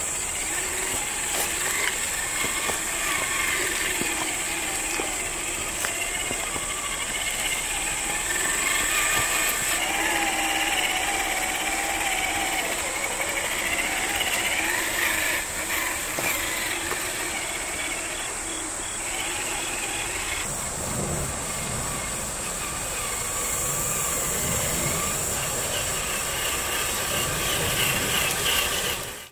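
Radio-controlled Traxxas TRX-4 scale crawler running over rock, its electric motor and geared drivetrain whining and rising and falling with the throttle. A steady high-pitched hiss runs underneath, and a lower rumble joins about twenty seconds in.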